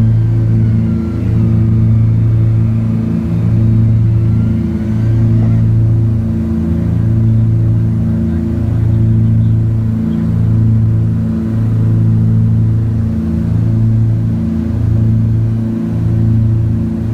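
Cessna 421's twin geared, turbocharged Continental six-cylinder engines at takeoff power, heard from inside the cockpit during the takeoff roll and climb-out: a loud, steady drone that swells and fades about every second and a half, the beat of the two engines and propellers turning at slightly different speeds.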